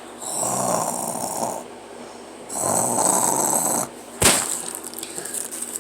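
A person imitating snoring for a sleeping puppet: two long snores of about a second and a half each, followed by a sharp click.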